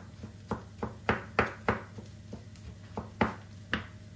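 Large kitchen knife chopping soft roasted aubergine on a wooden cutting board: a run of about nine uneven knocks of the blade against the board.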